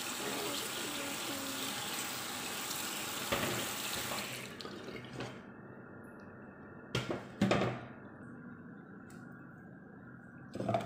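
Kitchen tap running onto boiled potato chunks in a plastic colander in a stainless steel sink, rinsing them after draining; the water shuts off about four and a half seconds in. A couple of sharp knocks follow as the metal saucepan is handled, and another near the end.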